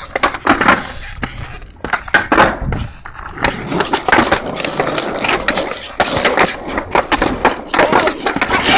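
Skateboard rolling, with repeated sharp clacks and knocks of the board.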